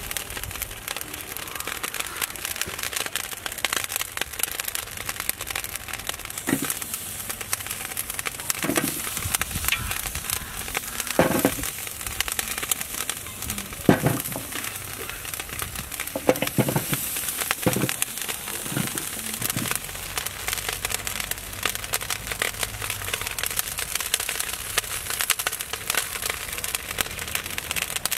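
Wood fire crackling and popping under a large metal cooking pot, a steady stream of irregular small snaps. A few louder knocks come in the middle stretch as vegetables are tipped into the pot.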